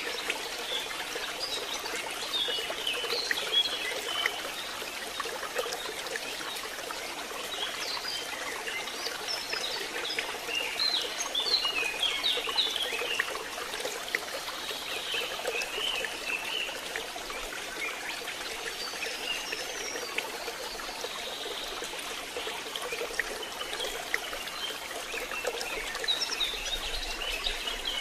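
Steady rain falling, a continuous even hiss, with many short, high-pitched chirps and squeaks scattered over it.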